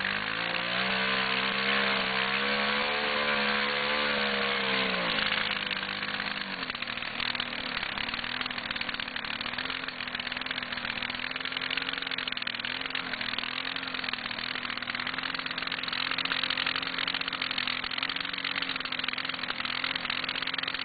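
Yamaha ATV engine revving hard as the quad churns stuck in deep mud. The pitch climbs and holds high for the first few seconds, then drops about five seconds in to a lower, steadier, slightly wavering run, over a steady hiss.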